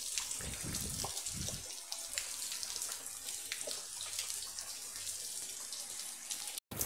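Rain falling steadily: an even hiss with many small ticks of drops, and a few low bumps in the first couple of seconds.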